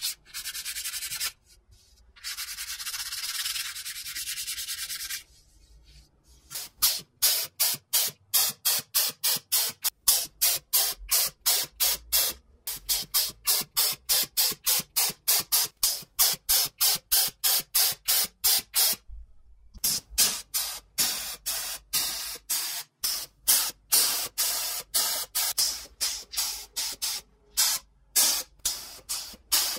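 A gloved hand rubbing steel plates, a steady scrubbing noise with a short break, for about five seconds. Then spray paint hissing in rapid short bursts, about two to three a second, with one brief pause partway through.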